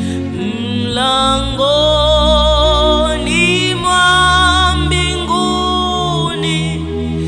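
Slow Swahili worship song: a singer holds long, wavering notes over sustained keyboard chords and bass.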